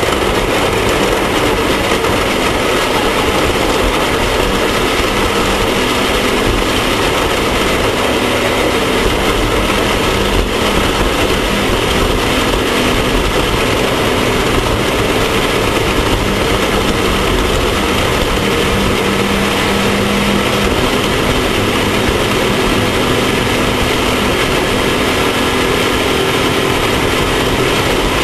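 Off-road race vehicle's engine running steadily at speed, under a constant rush of wind and terrain noise.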